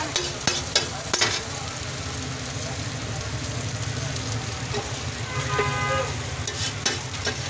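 Shami kebab patties and egg frying in oil on a flat iron griddle, a steady sizzle, with a few sharp clicks of a metal utensil against the griddle near the start and again near the end. A short pitched tone sounds a little past halfway.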